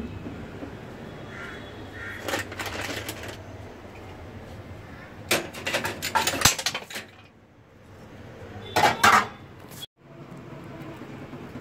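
Kitchen utensils and pots clattering as they are handled, in three short bursts of rattling and knocks.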